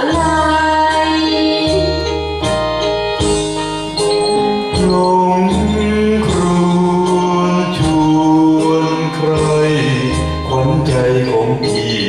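Karaoke performance: a keyboard-led backing track with a steady bass line, and a voice singing through a handheld microphone over it.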